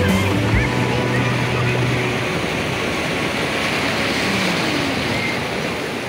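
Sea surf: a steady rush of breaking waves and foaming shallow water.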